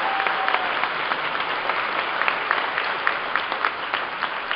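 Large audience applauding, many hands clapping together, the applause slowly thinning out.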